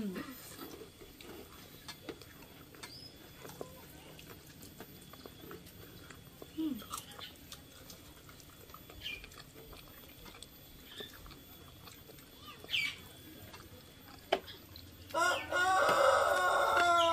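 A rooster crowing once: a long, loud call that starts near the end. Before it there are only faint scattered clicks and a few short chirps.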